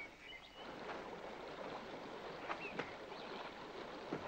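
A steady rushing noise like running water, with a few faint short high chirps.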